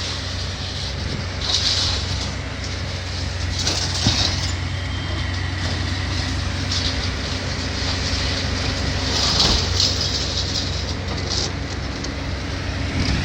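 Diesel engine of heavy demolition machinery running steadily while tearing down a brick school building. Bursts of crunching and clattering debris come now and then, with a sharp knock about four seconds in.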